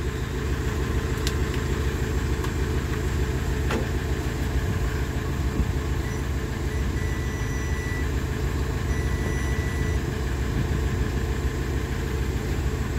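Steady low rumble of an idling engine, with faint thin high tones coming and going in the middle.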